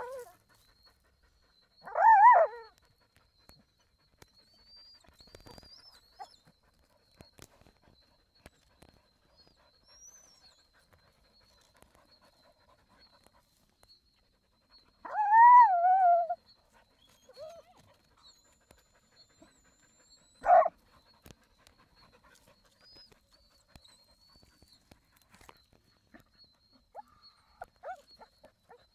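Hunting hound whining and yelping at an armadillo's burrow: a short whine about two seconds in, a longer wavering whine around the middle, and a sharp short yelp soon after, with a few faint whimpers near the end.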